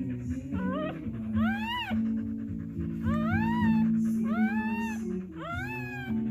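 Newborn Siberian Husky puppy crying: about five high cries, each rising then falling in pitch, over background music with sustained low notes.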